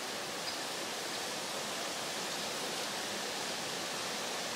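Steady, even rushing background noise in a forest, with one faint high tick about half a second in.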